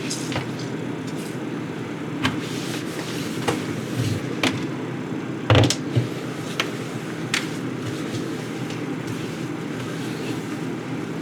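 A steady low hum with a string of light clicks and knocks over it, the loudest about five and a half seconds in.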